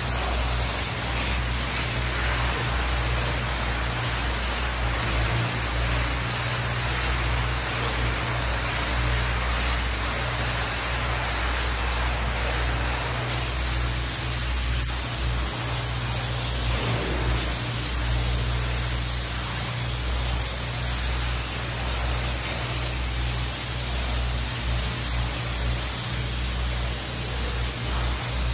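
Spray foam gun spraying closed-cell foam insulation: a steady, even hiss of air and foam leaving the gun, with a low steady hum underneath.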